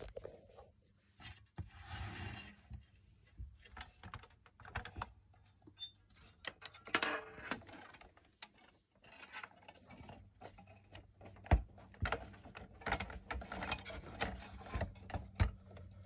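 Hard plastic clicks, knocks and rattles from a toy radio-control truck being handled and turned over on a tabletop, with a few sharper knocks near the middle and about three-quarters of the way through.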